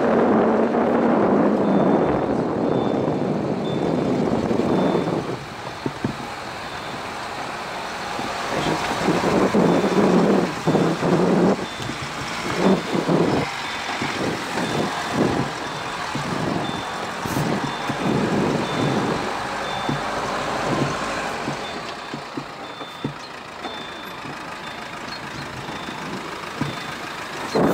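Subaru Forester driving along a rutted dirt track, engine and tyre noise picked up by a camera mounted outside on the car's body, louder for the first five seconds or so. A thin high beep repeats about twice a second throughout.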